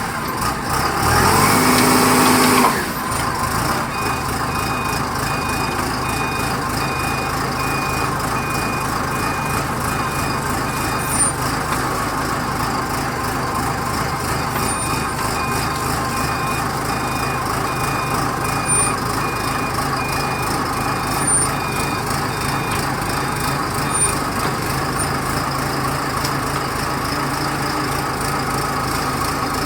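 Engine of a self-loading concrete mixer running steadily after revving up briefly near the start, with a high reversing alarm beeping in two long runs, about one and a half beeps a second.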